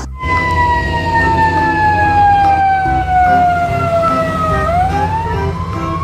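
Ambulance siren wailing: one long tone sliding slowly down for about four and a half seconds, then rising again, over a steady rumble of road traffic.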